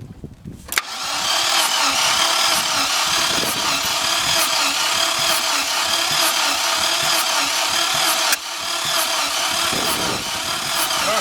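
ZMZ-405 inline four-cylinder petrol engine being cranked by its starter motor without firing, in an even rhythm, as for a compression test; the cranking eases off briefly about 8 seconds in and then carries on.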